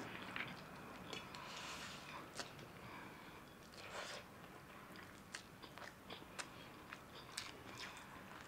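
Two people eating chow mein noodles: faint chewing and slurping, dotted with many short clicks and smacks.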